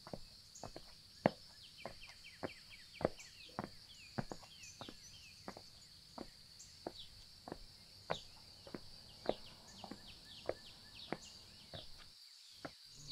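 Summer outdoor ambience: a steady high insect drone with short falling bird chirps, over irregular sharp taps about two to three a second. It all cuts off abruptly about a second before the end.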